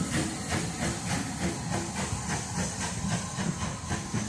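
Steam locomotive pulling away, its exhaust beating about three times a second over a steady hiss of steam, with the coaches' wheels rumbling along the rails.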